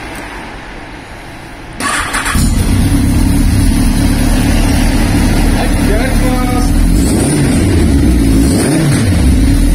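Yamaha XJR1300's air-cooled four-cylinder engine starting through a Nojima full exhaust: the starter cranks briefly about two seconds in, the engine catches and settles into a steady idle, and near the end the revs rise and fall a couple of times.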